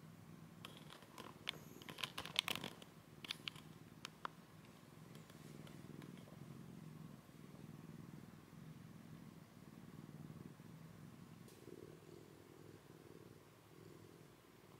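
Domestic cat purring steadily and softly while being stroked, with a cluster of crackling clicks and rustles from handling between about one and four seconds in.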